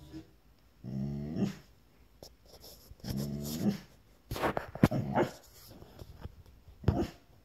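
Springer spaniel "talking": two low, drawn-out grumbling vocalizations, each under a second and about two seconds apart, followed by a few short, sharp noises from the dog.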